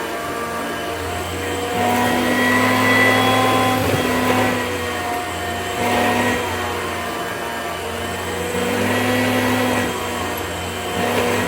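Hoover Concept upright vacuum cleaner with power-drive brush running steadily, a motor hum over rushing air, its sound swelling louder and easing off a few times.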